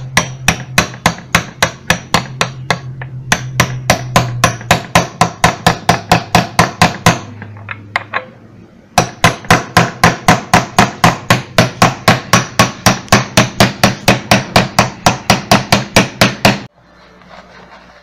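Gentle, rapid metal-on-metal taps of a wrench driving a vacuum cleaner motor's cooling fan down onto its shaft, about four a second in three runs with short pauses between, stopping near the end.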